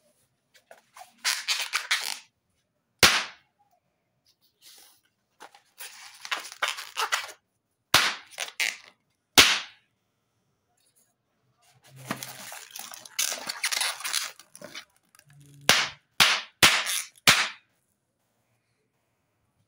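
Small latex balloons being popped by hand: several sharp single pops spread out, with a quick run of four near the end. Between the pops there is scratchy rubbing as the rubber is handled.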